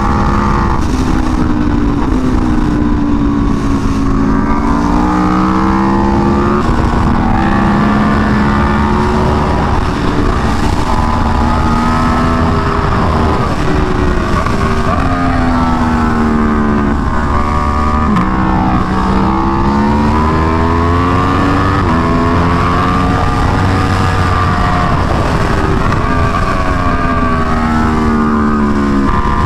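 2017 Aprilia Tuono V4 1100 Factory's V4 engine on full track pace, with an SC Project CR-T exhaust. The revs climb in steps through quick upshifts down the straights and drop with downshifts into the corners, over and over. Wind rushes on the microphone underneath.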